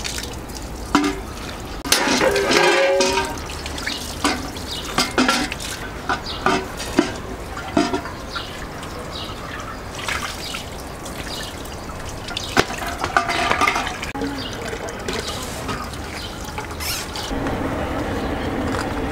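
Water pouring into a metal samovar as it is filled, with scattered knocks and clinks.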